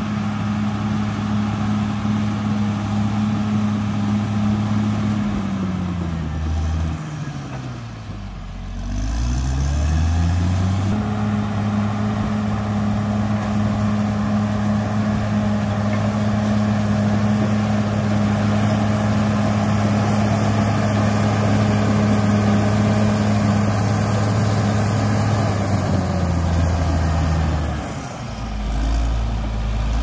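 A CAT D6R XL crawler bulldozer's diesel engine running steadily under load. Its revs sag about six seconds in, drop low, then climb back. The same dip comes again near the end.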